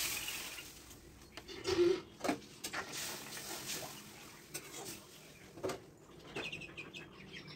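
Water poured from a mug into a steel karai of hot oil and spices, hissing briefly as it hits the oil, then a metal spatula knocking and scraping in the karai several times as the gravy is stirred.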